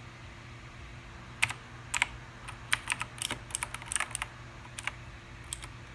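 Keys on a Razer BlackWidow X Chroma mechanical keyboard being pressed: a scatter of separate sharp clicks starting about a second and a half in, some coming in quick runs.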